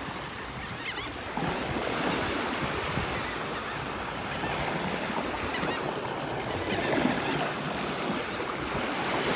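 Small waves breaking and washing up onto a sand beach, a steady rush of surf.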